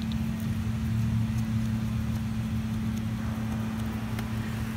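Steady low mechanical hum of a running machine in the background, even in pitch and level, with a faint click or two.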